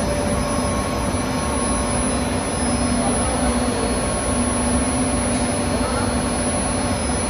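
Plastic blown-film extrusion line running: a loud, steady machine drone from its motors and blower, with a few faint steady tones above a low rumble.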